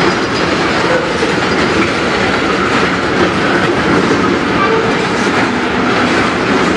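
Loaded railway tank cars of a slow freight train rolling past, a steady rolling noise with wheel clicks over the rails. The track is wobbly and sinks under the cars, which keeps the train slow.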